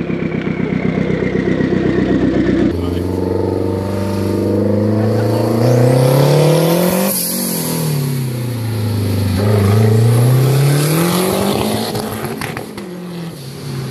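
Car engine being driven and revved: a rough, pulsing engine note, then the pitch climbs, drops sharply about halfway through, climbs again and falls away as the car accelerates and lifts off.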